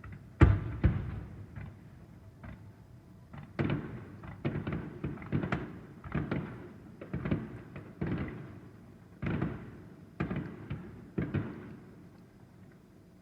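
Aerial firework shells bursting: a string of booming bangs, each trailing off in a rolling echo. A loud one comes about half a second in, then after a short lull they follow at one to two a second.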